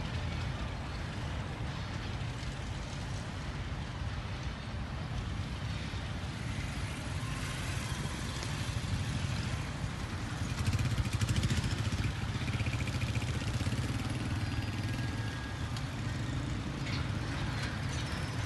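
Diesel locomotive working as rear banker on a loaded coal freight train, its engine a steady low drone with track noise. Motorcycle engines pass close by at the level crossing. The sound swells about ten to twelve seconds in.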